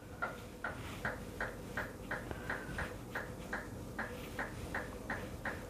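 A clock ticking steadily, about three ticks a second, over the faint steady hum of a refrigerator.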